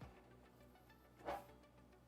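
Faint background music with one short metallic knock about a second in, from pliers working the cut tabs of a steel gutter.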